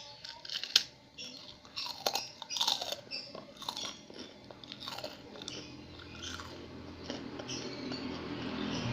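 Close-up chewing and crunching of crisp fried food, with a string of sharp crunches that thin out after about five seconds. A low rumble rises in the background toward the end.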